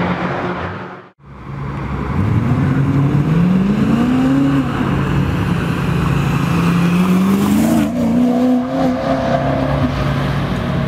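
BMW M3 V8 with an Akrapovič exhaust accelerating, the engine pitch rising twice as it pulls away, with steadier stretches between, after a brief cut-out about a second in.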